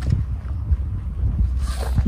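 Low, steady rumble of noise on the microphone, starting abruptly, with a brief hiss rising near the end.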